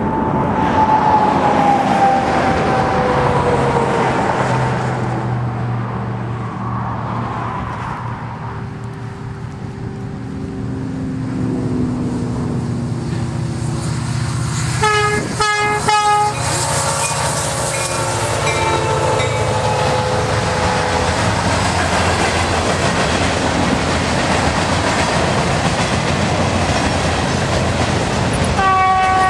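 Union Pacific freight train led by an EMD SD90/43MAC locomotive: its horn sounds a long chord that fades over the first few seconds. About halfway through it gives a rapid string of short toots, a salute from the crew, then holds notes that drop in pitch as the locomotives pass. The freight cars follow with a steady rumble and wheel clatter on the rails, and another horn blast starts near the end.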